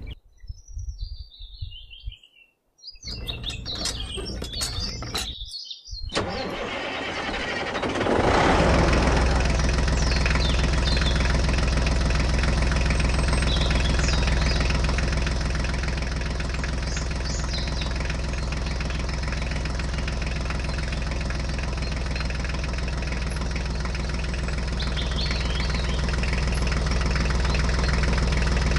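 An engine starts about six to eight seconds in and then runs steadily at an even idle for the rest of the time. Before it starts there are only a few scattered short sounds and brief gaps.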